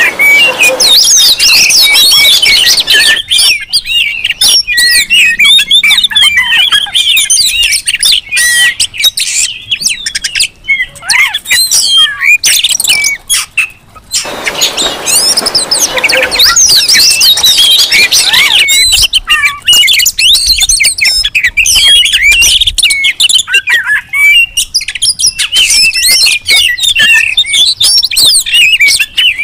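Several Oriental magpie-robins singing and calling over one another: a dense, noisy tangle of fast varied whistles and chirps mixed with harsh scolding notes, the agitated song of excited birds. It drops away briefly about halfway through, then picks up again.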